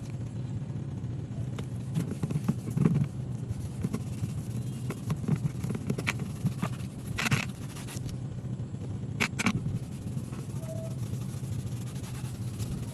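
A motor hums steadily, with scattered clicks and scrapes throughout.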